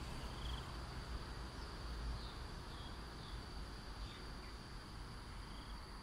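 Outdoor ambience dominated by a steady high-pitched insect drone, with a few short, faint bird chirps scattered through it and a low rumble underneath.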